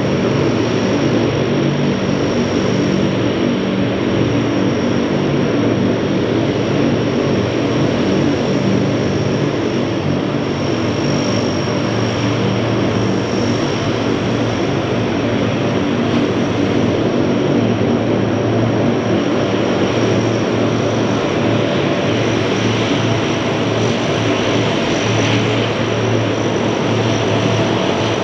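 Several Lockheed C-130 Hercules taxiing nose to tail, their four-engine turboprops running steadily: a low propeller hum under a high, even turbine whine.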